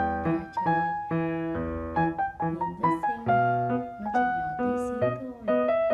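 Background piano music: a light melody of short notes over a bass line.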